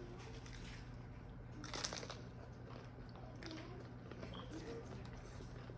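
Biting into and chewing a taco close to the microphone, with one louder crunch about two seconds in and softer chewing after.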